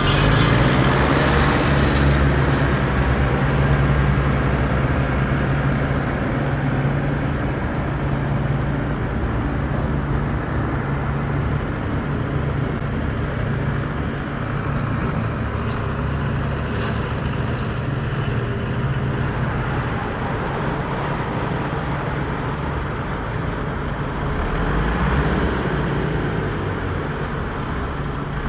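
Radio-controlled construction models (trucks, dozer, excavator) running: a steady engine-like drone with a low hum, rising slightly about three-quarters of the way through.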